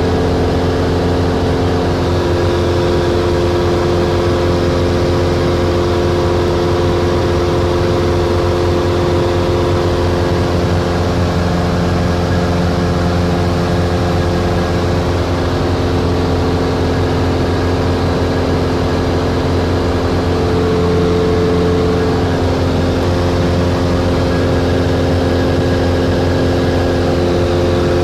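OMF Symphony light airplane's blueprinted and balanced Lycoming O-320 four-cylinder engine and propeller droning steadily in level cruise at about 2610 rpm, heard inside the cockpit.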